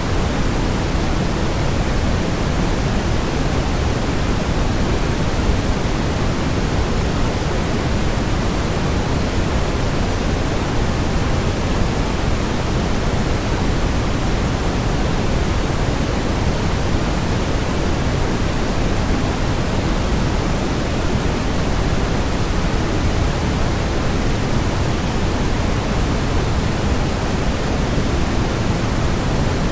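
Waterfall white noise: a steady, unchanging rush of falling water, fullest in the low end.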